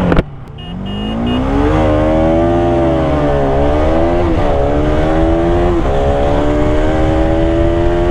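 A sharp click, then the Bajaj Pulsar RS200's single-cylinder engine accelerating hard at full throttle. Its pitch climbs, drops back at each of about three upshifts and climbs again, with wind rushing over the mic.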